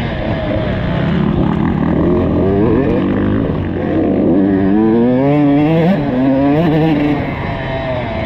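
Motocross bike engine heard from on board, its pitch rising and falling repeatedly as the throttle is opened and closed through the track's turns and straights.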